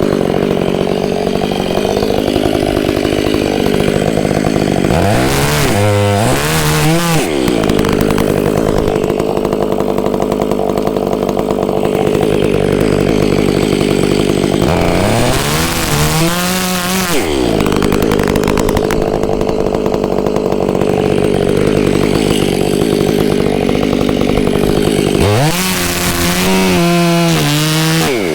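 Stihl 500i two-stroke chainsaw running at full throttle through a tree trunk, making the back cut to fell it. The engine note dips and climbs back three times as the saw loads and is eased.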